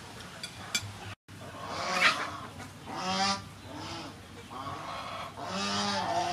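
Farmyard fowl calling several times with short, nasal, honk-like calls, the loudest about three seconds in and near the end. There are a couple of faint light clicks at the very start.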